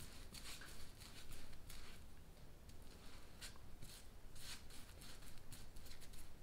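Brush scrubbing liquid epoxy onto a plywood joint: faint, irregular scratchy strokes, several a second, as the bristles spread the epoxy over the wood.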